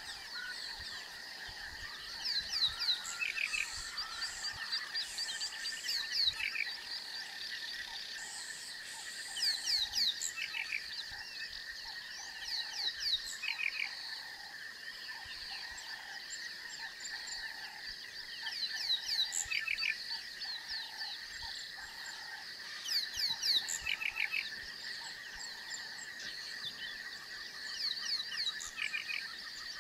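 Bushveld chorus of small wild animals: a steady high drone, with clusters of quick chirping calls every couple of seconds and a softer regular pulsing call underneath.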